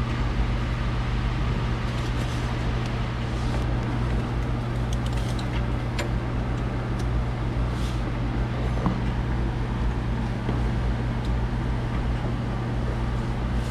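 Steady low mechanical hum with a few faint small clicks.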